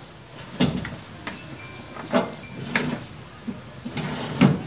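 Hand tools and battery hardware being handled in a vehicle's engine bay while a battery is fitted: about half a dozen sharp metal clinks and knocks, the loudest near the end.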